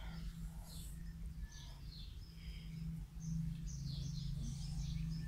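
Outdoor ambience: scattered bird chirps in the background over a steady low hum.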